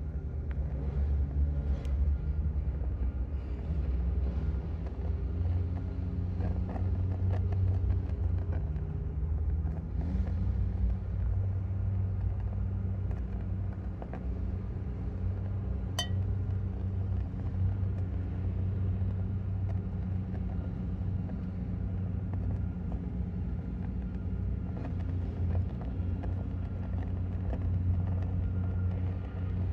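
Steady low rumble of running machinery with a constant hum, and a single sharp click about sixteen seconds in.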